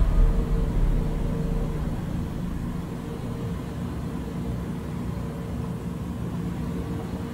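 A steady low rumble that eases off over the first couple of seconds, then holds level, with a faint steady hum above it.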